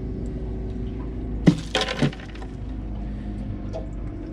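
A sharp knock about a second and a half in, then a brief rattle and clink of ice, as a tautog is dropped onto crushed ice in a cooler. A steady low hum runs underneath.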